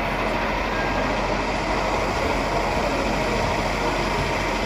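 Steady engine-like drone from 1:8-scale RC construction models, heard over the even din of a busy exhibition hall.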